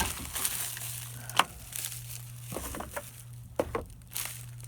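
Crinkling of packaging as a new watch bezel is handled, with scattered sharp clicks; the loudest click comes about a second and a half in.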